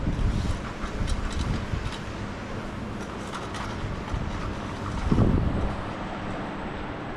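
Wind buffeting the microphone over a steady outdoor wash of sound, with a louder rumble about five seconds in.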